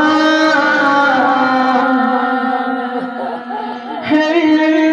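A woman's voice chanting an Iraqi naʿī lament, holding long sustained notes. About three seconds in, the note breaks into a brief wavering ornament, then settles on another long held note.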